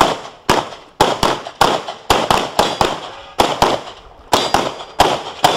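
Rapid gunfire: about fifteen sharp shots in irregular strings, some in quick pairs, each ringing out briefly.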